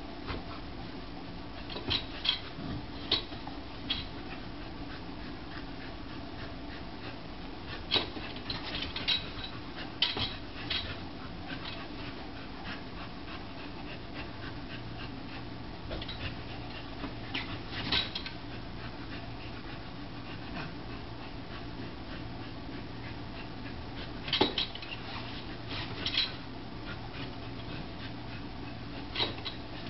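Welsh Corgi giving short, sharp yips, a dozen or so scattered through and some in quick pairs, as it chases a laser pointer dot, over a steady low room hum.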